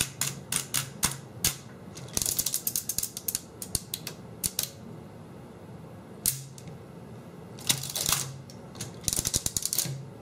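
The exposed printing mechanism of a 1949 R.C. Allen Model 75 mechanical adding machine, worked by hand: its spring-loaded number-stamp bars and pawls make metallic clicks and clacks. There are single clicks at first, then several short runs of rapid clattering.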